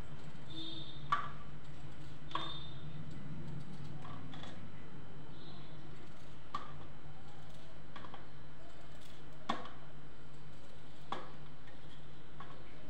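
Kitchen knife cutting raw potatoes by hand over a steel plate: a short sharp click every second or two as the blade cuts through and the pieces fall.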